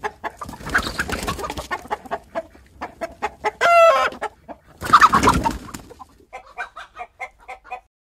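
Chicken clucking in short bursts, with one longer, loud squawking call about four seconds in. Near the end it turns to quicker, softer clucks.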